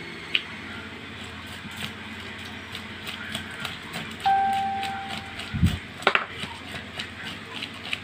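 Knife scraping the scales off a parrotfish on a wooden board: a continuous run of dry, scratchy clicks. About four seconds in, a single steady electronic beep sounds and fades over about a second, and a dull knock and a sharp click follow.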